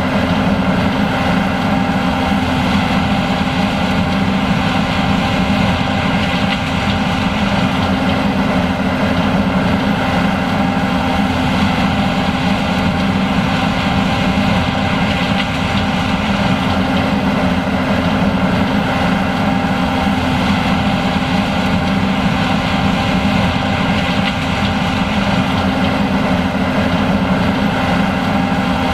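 John Deere S780 combine running steadily while harvesting corn: its diesel engine and harvesting machinery make a continuous, even sound at a constant level throughout.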